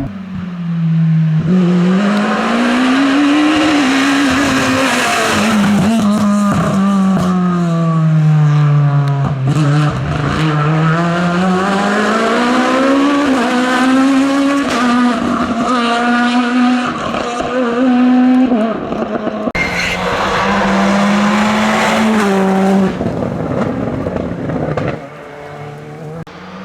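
Rally car engine driven hard on a test stage: its pitch climbs and falls again and again as it accelerates, shifts gear and lifts off for corners. The sound dies down near the end.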